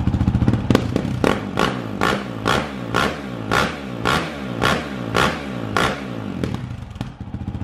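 2019 Honda CRF450L's 450 cc single-cylinder four-stroke engine, breathing through a Yoshimura RS4 full exhaust, running on a stand while the throttle is blipped about twice a second. Each blip is a short sharp rise and fall in revs; the blips ease back toward idle near the end.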